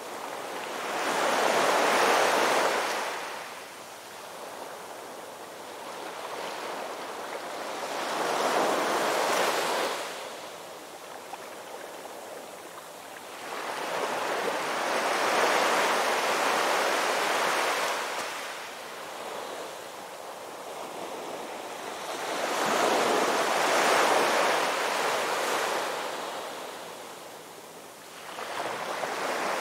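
Ocean waves breaking on a shore, the surf surging and falling away about every seven seconds.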